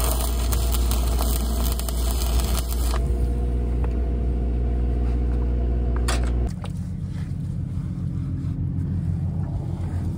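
Stick-welding arc from a 3/32-inch 7018 rod crackling hard for about the first three seconds, then the arc stops. A steady engine drone runs underneath, dropping lower and quieter about six and a half seconds in.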